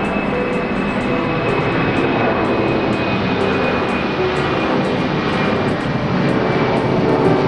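Boeing 767-300ER's twin jet engines running at takeoff power, a loud steady rush with a thin high whine that sinks slightly in pitch.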